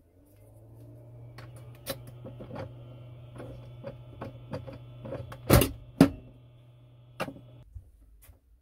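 Small capsule espresso machine humming low and steady while its lever is worked and a capsule is loaded, with many plastic clicks and two sharp snaps of the lever closing about five and a half to six seconds in; the hum stops shortly before the end.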